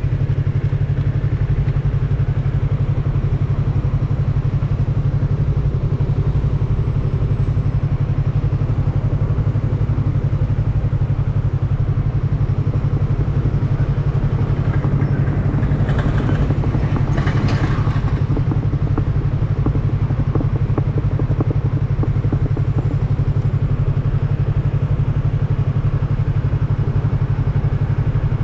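Yamaha MT-03's parallel-twin engine running at a steady, unchanging pitch with no revving. A brief hiss comes through about sixteen to eighteen seconds in.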